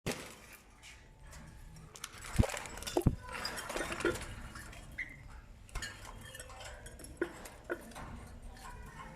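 Parrots at the nest feeding newly hatched chicks: irregular scratching and clicking, with two louder knocks a few seconds in and a brief faint squeak about halfway through.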